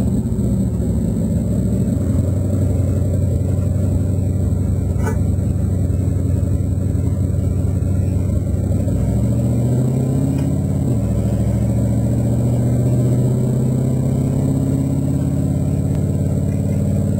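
Big-block Chevrolet V8 of a drag race car running at low speed, heard from inside the cabin. Its pitch rises about nine seconds in, drops back a moment later, then holds steady.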